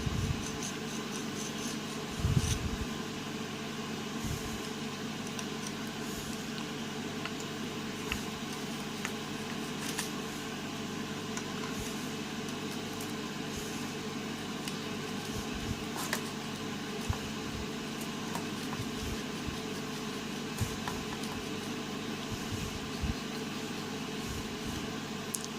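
Steady mechanical hum, with scattered light clicks and taps now and then, a slightly louder knock about two and a half seconds in.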